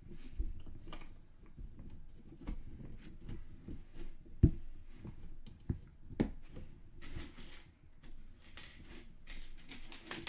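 Lego bricks being handled and pressed together: scattered small plastic clicks and taps, the sharpest about four and a half seconds in.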